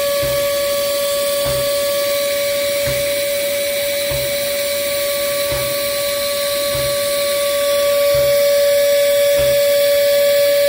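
Moore No. 3 jig grinder's high-speed grinding spindle running with a steady high whine, under a soft low pulse about every second and a half. It gets a little louder about three quarters of the way through.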